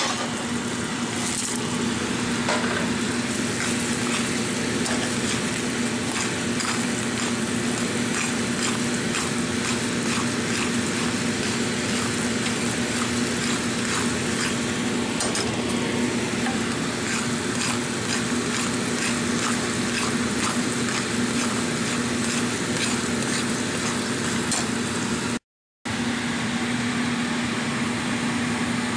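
Popcorn kernels sizzling in hot bubbling caramel in a pan while being stirred with a spatula, with many small crackling ticks, over a steady low hum. The sound drops out for a moment near the end.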